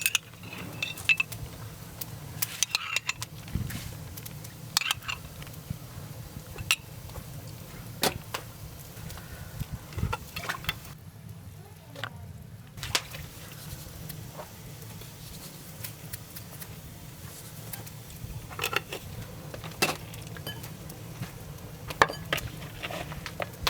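Cooking utensils and dishes knocking and clinking at irregular intervals, over a steady low hum.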